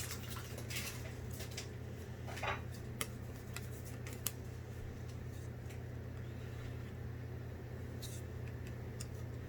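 Trading cards and booster-pack wrappers being handled, with a few soft clicks and rustles over a steady low hum.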